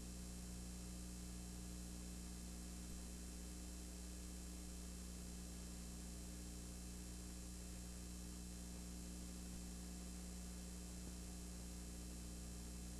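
Steady low electrical hum with a layer of hiss, unchanging throughout, with no game sounds.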